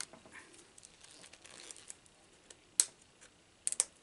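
Plastic wrap crinkling and tearing as it is picked off a mist spray bottle's sprayer nozzle, with a few sharp clicks near the end.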